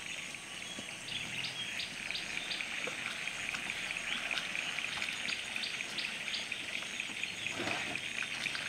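Outdoor ambience: a steady high-pitched hiss with many short chirps scattered through it, and a brief rushing sound near the end.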